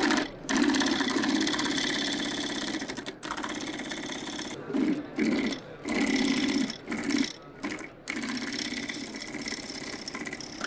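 Union Special 80200Z double-needle, bottom-feed chainstitch sewing machine with a heavy-duty puller, stitching thick geotextile fabric at a fast, even rhythm. It runs for a few seconds, sews in short stop-start bursts through the middle, then runs steadily again.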